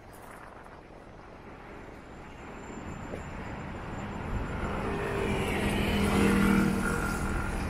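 A motorcycle engine passing close by, growing steadily louder to a peak about six seconds in and then easing off slightly, over the hum of street traffic.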